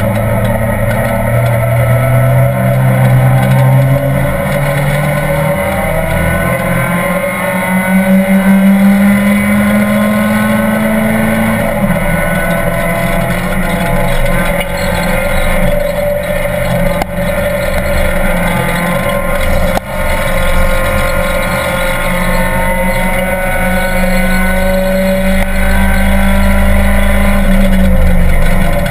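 Race car engine heard from inside the cabin of a Renault Twingo Cup car at racing speed, its note climbing under acceleration and dropping sharply a few times as it changes gear or brakes, over constant road and wind roar.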